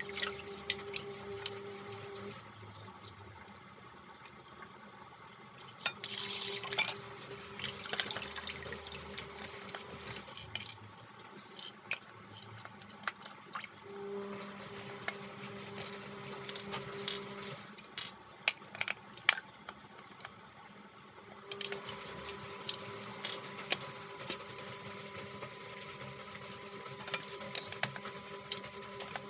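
Tap water running and splashing in a sink as the plastic canister and filters of a Hoover Curve bagless vacuum cleaner are washed out, with frequent clicks and knocks of the plastic parts. A steady low hum comes and goes several times.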